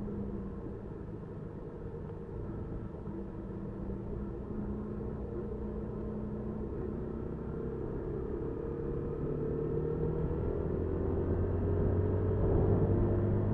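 Motorcycle engine running under way, heard through the bike's own dash recorder over low road and wind rumble. The engine note rises gradually and grows louder over the second half.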